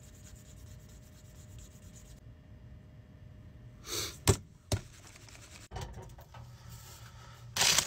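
Quiet office room tone with small handling clicks. A breathy sigh comes about four seconds in, followed by a few sharp clicks, and a louder rustling knock near the end.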